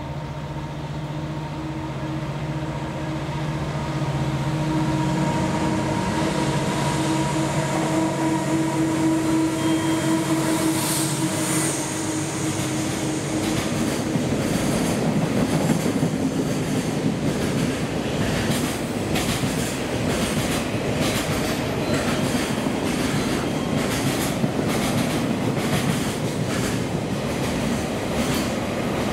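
JR Freight DF200 diesel-electric locomotive approaching and passing with a steady engine drone, followed for the second half by its train of Taki 1000 oil tank wagons rolling by with a regular clickety-clack of wheels over rail joints.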